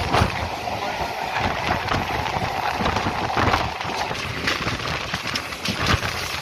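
Passenger train running at speed, heard from an open coach door: wheels clattering over rail joints and points with a steady rush of wind and rolling noise. From about halfway, a suburban electric train passes close alongside on the next track, and a steady hum in the mix stops about four seconds in.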